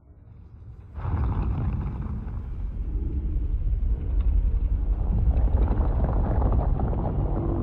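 Remade Godzilla monster sound effect: a deep, rough rumble that swells up from quiet and jumps louder about a second in, then holds.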